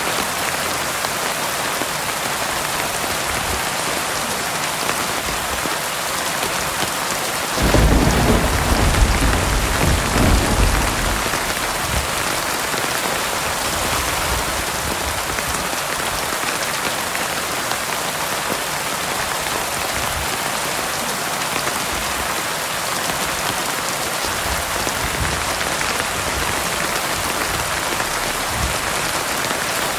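Heavy rain falling steadily, with a single clap of thunder breaking about eight seconds in and rumbling for about four seconds before fading.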